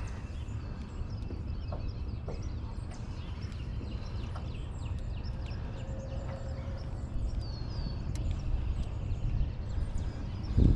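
Small songbirds chirping and calling here and there, with a few short down-sweeping notes after about seven seconds, over a steady low rumble of wind on the microphone.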